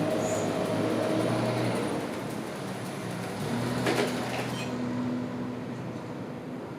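Robot vacuum cleaner running with a steady motor whir and hiss, with a sharp knock about four seconds in; shortly after, the high hiss drops away and a lower hum remains.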